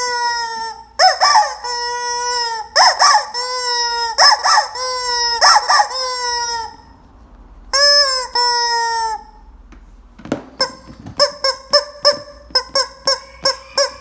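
Rubber chicken squeeze toy squawking: six long honking squawks of about a second each, each falling slightly in pitch. After a short pause comes a quick run of short squeaks, about three a second.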